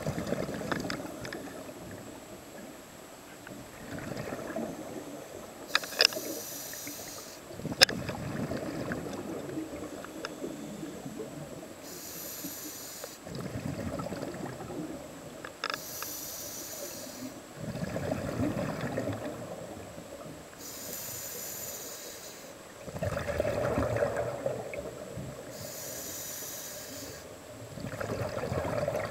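Scuba diver breathing through a regulator underwater: a hiss on each inhale and a bubbling rumble on each exhale, about every five seconds. Two sharp clicks near the sixth and eighth seconds.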